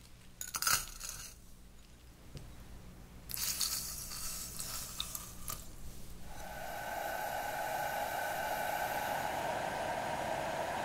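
Brown sugar and water go into an empty stainless steel saucepan: a short rattle of granules on the steel about half a second in, then a pour for a couple of seconds from about three seconds. From about six seconds the brown sugar syrup boils with a steady bubbling hiss.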